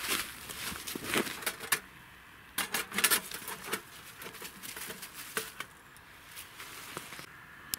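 Rustling and crunching of steps in snow and dry leaves, then irregular clicks and knocks as an aluminium mug full of snow is handled and set on a stainless-steel grill. The knocks are densest between about one and three seconds in and thin out to a few ticks later.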